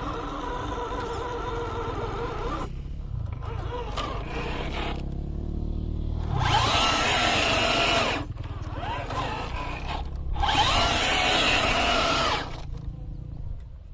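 Electric motor and gear drivetrain of an RGT EX86190 RC crawler whining as it drives, with two louder bursts of throttle about six and a half and ten and a half seconds in, the pitch rising at the start of each.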